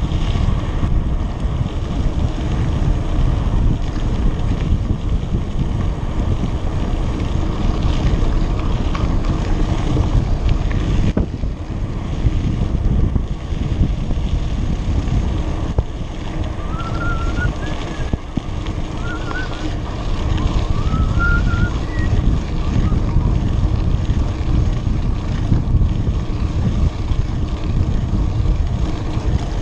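Wind buffeting the microphone of a camera on a mountain bike riding a dirt road, a steady low rumble mixed with tyre noise on the gravel. A few short high chirps sound about halfway through.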